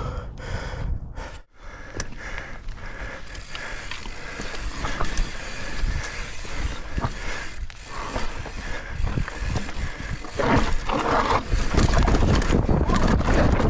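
Mountain bike ridden down a rocky trail: tyres on dirt and rock, with the bike clattering and knocking over the bumps. It gets louder and rougher with a heavy rumble about ten seconds in.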